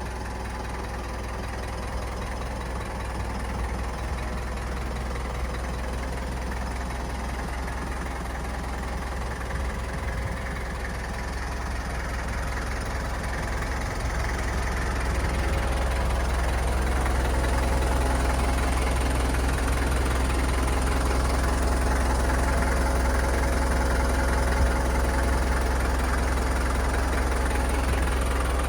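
Diesel engine of a Toyota 4FD20 2-ton forklift running steadily, louder from about halfway through.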